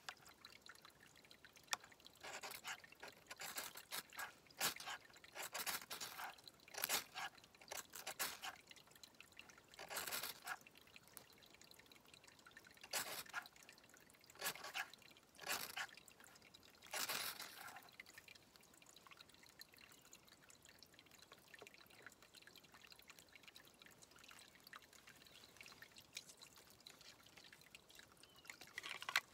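Ferrocerium rod struck again and again with a Fallkniven TK2 knife, a run of short scraping strikes throwing sparks into tinder, close together at first and then more spaced out; the strikes stop in the last ten seconds or so. A faint trickle of water runs underneath.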